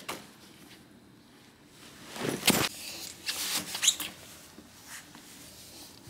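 Handling noises: a few short rustles and knocks, the loudest about two and a half seconds in, with another cluster a second later and fainter ones near the end.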